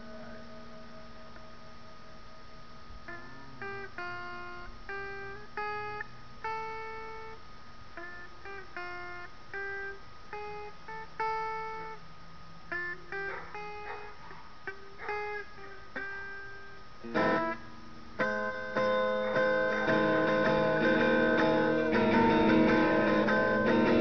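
Clean electric guitar played through a small practice amplifier: a held note fading out, then separate picked notes in a slow melody, then a sharp strum and louder, fuller chords strummed near the end.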